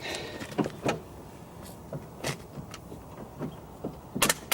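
A run of scattered sharp clicks and knocks from hard parts being handled, with a louder double knock near the end.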